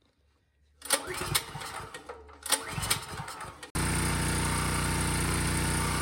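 Champion generator's single-cylinder engine cranked twice with the choke fully on, catching about four seconds in and then running steadily. It starts on its freshly cleaned carburetor, whose main jet had been gummed up.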